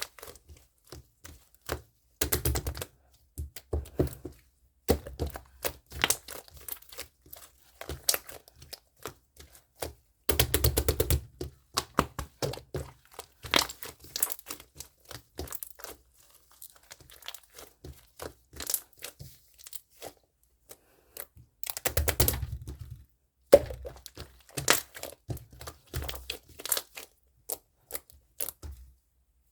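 Close handling of crinkly material, with irregular clicks, taps and tearing or crinkling rustles in a small room, and a few denser bursts of rustling.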